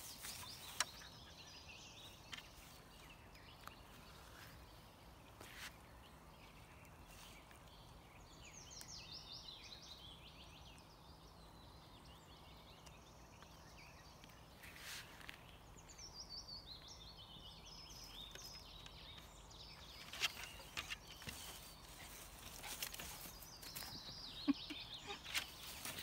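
A songbird singing: a rapid run of high notes stepping down in pitch over a couple of seconds, repeated three times. Scattered light clicks and rustles over a faint steady background.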